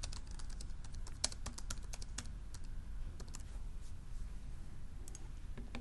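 Typing on a small netbook keyboard: a quick run of key clicks that thins out after about three and a half seconds, over a low steady hum.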